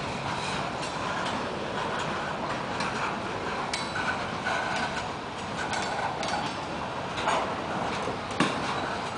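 Loaded freight cars of a long CSX train, a tank car and a string of steel-coil cars, rolling past: a steady rumble of steel wheels on rail broken by irregular clicks and clacks as the wheels cross rail joints.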